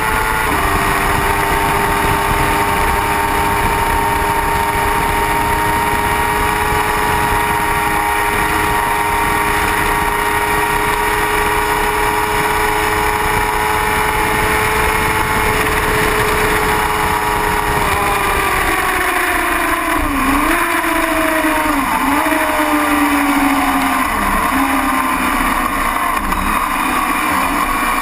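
Sport motorcycle's engine held at steady high revs flat out, with heavy wind rush. About 18 seconds in the pitch falls as it brakes and downshifts several times, each shift a short dip and blip in the revs.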